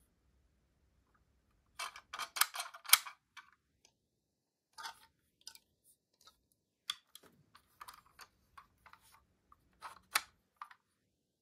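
Small sharp clicks and taps of a 1/24 diecast model car, a Norev Fiat Doblò Malibu, being handled, with its little hinged doors opened and shut. A quick flurry of clicks comes about two seconds in, then scattered single clicks follow.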